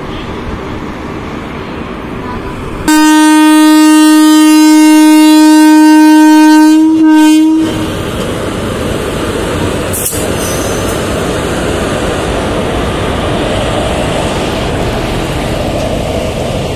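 WAP-4 electric locomotive sounding its horn as it passes close by: one long blast of about four and a half seconds with a short break and a brief second blast at the end. Before and after the horn, the steady rumble of the locomotive and coaches rolling past.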